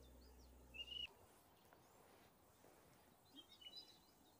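Near silence with faint songbird chirps: one short call about a second in and a few quick chirps near the end.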